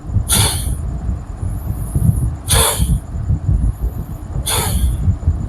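Kapalbhati pranayama breathing: three short, forceful exhalations through the nose, about two seconds apart, with a gentle inhale between them. A steady low rumble runs underneath.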